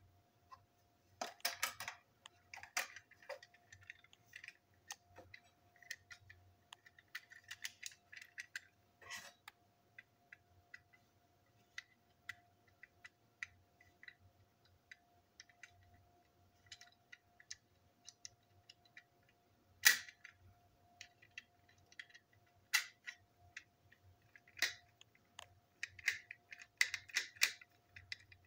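Small plastic clicks, taps and snaps from handling a model train passenger coach as it is taken apart, its body and underframe pieces knocking together, with one sharp loud click about twenty seconds in. A faint steady hum runs underneath.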